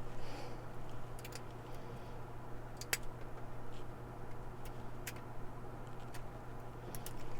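Lock pick and tension tool working inside a laminated steel padlock: a few scattered small metallic clicks as the pick works the pins, the sharpest about three seconds in, over a steady low hum.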